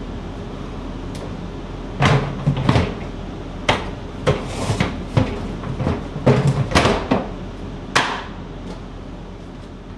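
Hard plastic knocks and clacks from a Shop-Vac wet/dry vacuum being handled at its top: about a dozen sharp knocks between roughly two and eight seconds in, over a steady low hum.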